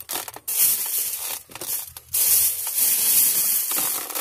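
Plastic bag and foam takeout container being handled, rustling and crinkling. A few short rustles in the first two seconds, then louder and steadier from about two seconds in.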